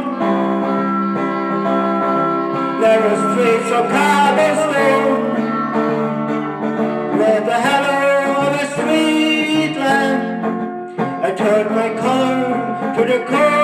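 Guitar music with a wavering, gliding melody line over sustained chords, and no words sung.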